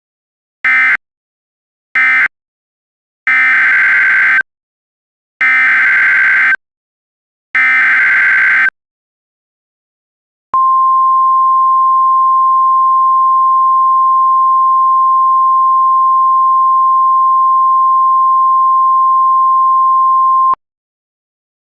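NOAA Weather Radio alert tones. Two short bursts and then three longer bursts of warbling SAME digital data are followed, after a short gap, by the steady 1050 Hz weather radio warning alarm tone. The tone holds for about ten seconds and cuts off suddenly.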